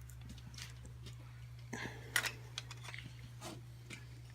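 Scattered light clicks and taps of small fuel-pump parts being handled and fitted, the sharpest about two seconds in, over a steady low hum.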